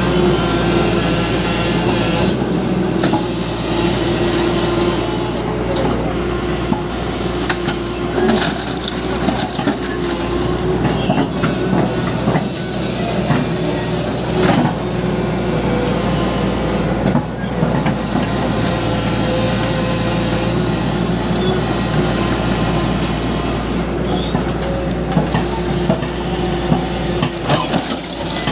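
Tata Hitachi crawler excavator's diesel engine running steadily under load while the machine digs, with scattered clanks and knocks from the bucket and rocks, and a clatter near the end as a load of earth and stones is dumped into a tractor trolley.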